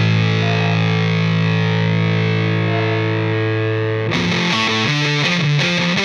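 Background music: a distorted electric guitar holding a sustained chord, then about four seconds in breaking into a quick, choppy riff.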